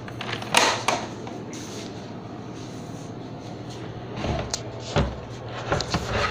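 The hard plastic latch and lid of a Bubba 2-in-1 cooler being unclipped and pulled apart by hand. There are sharp clicks about half a second in, then a run of knocks and thuds about four to six seconds in as the sections separate.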